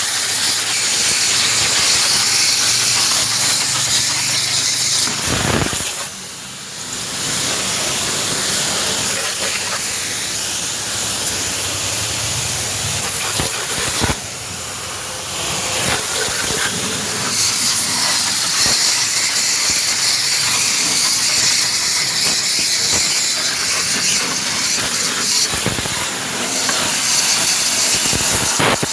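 Loud, steady hissing, strongest in the high range, that briefly weakens about six seconds in and again after a sharp click about fourteen seconds in.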